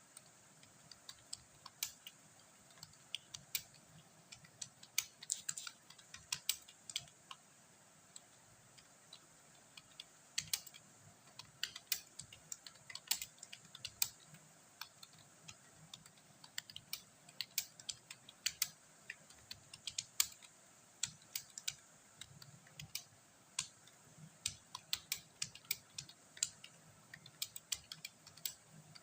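Computer keyboard being typed on in uneven runs of key clicks with short pauses.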